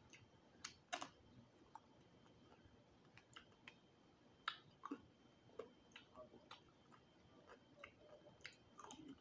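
Faint, irregular clicks and small crunches of crispy roasted quail bones being nibbled and picked apart by teeth and fingers.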